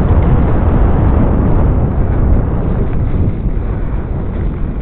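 Wind buffeting the microphone of a camera on a bicycle riding fast downhill over a rough dirt and grass track. The noise is loud and steady, easing slightly near the end.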